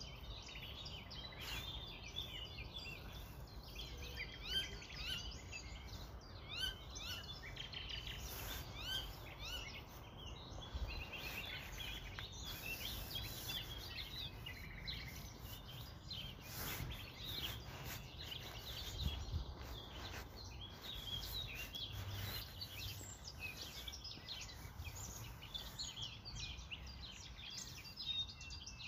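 Many small birds chirping busily in quick, overlapping calls over a low background rumble.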